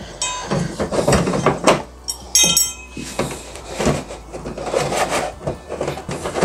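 Plastic back cover of a 32-inch Samsung LCD TV being handled and worked loose at its edges: a run of clicks, knocks and rubs of plastic. A short metallic clink rings out a little over two seconds in as a screwdriver is set down on the table.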